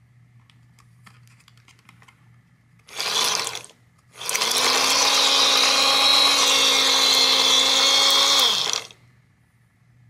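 Battery-powered toy washing machine's small motor spinning its tub of water beads: a brief run about three seconds in, then a longer run of about four and a half seconds with a steady whine that winds up at the start and winds down at the end.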